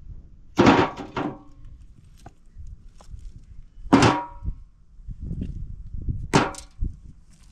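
Sharp knocks of hard objects striking, each ringing briefly: a pair about half a second in, a single loud one near four seconds, and another pair near the end.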